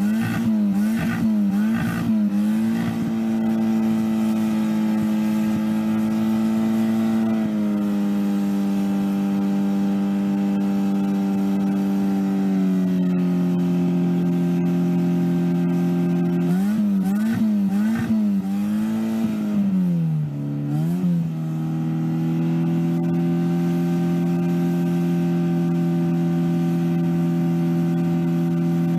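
Citroën AX engine held at high revs, a steady high-pitched drone that wavers near the start, steps down slightly twice, and dips and wavers again about two-thirds through before settling. The engine is overheating and steaming under the abuse.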